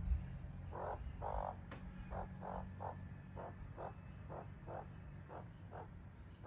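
Australian magpie giving a run of short, harsh calls, about two to three a second, fading toward the end. A brief knock sounds at the very start.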